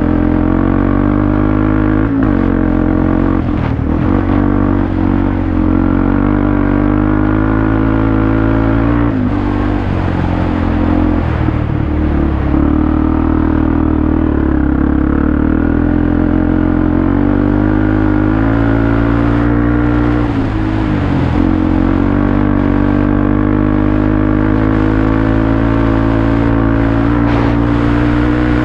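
Off-road vehicle engine running steadily under way, its note rising and falling with the throttle and dipping briefly several times.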